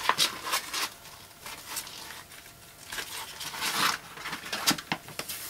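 Green rubber sandblast resist mask being peeled off a freshly blasted stone: a run of irregular crackles, rustles and small snaps as the sticky sheet pulls away, busiest just before four seconds in.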